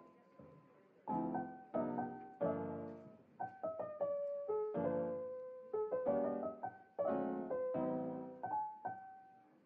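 Background music: a piano playing a gentle melody over chords, each chord struck and left to fade before the next.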